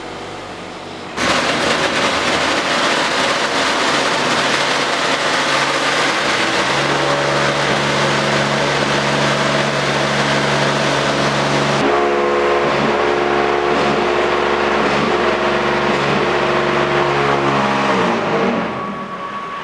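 Concrete block-making line machinery running: a belt conveyor feeds concrete mix onto a screen shaken by a vibrator motor. About a second in, a loud, steady rattling noise starts over a steady machine hum. The hiss thins out about halfway through, and the noise eases off near the end.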